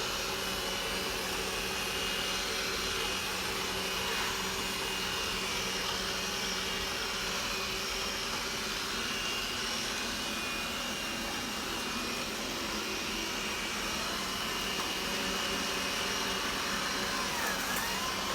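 Roborock S6 Pure robot vacuum cleaner running, its suction fan and brushes giving a steady whir with a few constant tones.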